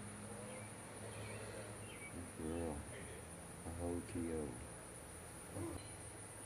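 A steady, high-pitched insect chorus trilling without a break. Around the middle come a few short, low vocal sounds.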